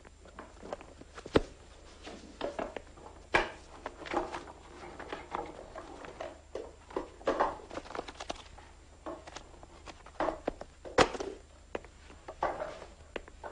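A thick hardback book being handled and its pages flipped and riffled: irregular paper rustles with sharp clicks and knocks, the loudest about eleven seconds in.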